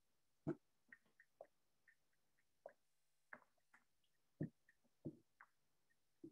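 Typing on a computer keyboard: faint, irregular keystrokes, about fifteen in a few seconds.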